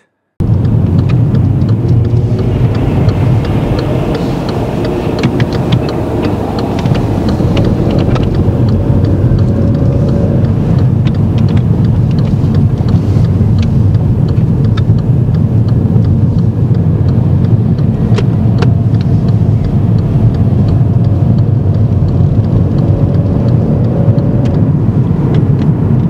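Car engine and tyre noise heard from inside the cabin while driving through a roundabout: a steady low rumble, with the engine note rising and falling slightly as the car accelerates.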